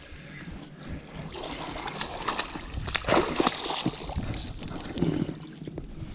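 Water sloshing and splashing in irregular small splashes and trickles, busiest through the middle.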